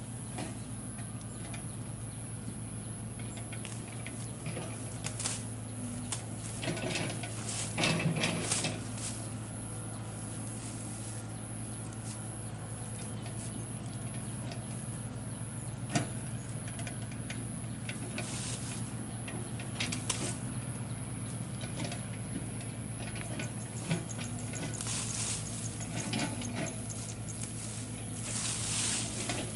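Engine of a rice-paddy ditch-cutting machine running steadily, with scattered clicks and patter on top.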